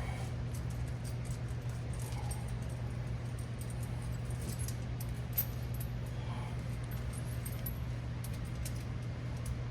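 Light, scattered clinking of steel tire chain links as a truck tire chain is handled and its inside connector hooked up, over a steady low hum.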